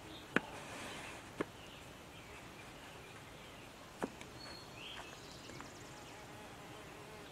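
Three small sharp clicks of a Starrett outside micrometer being handled while it is read after setting from a snap gauge. The first click, just after the start, is the loudest; the others come about a second and a half and four seconds in, over quiet room tone.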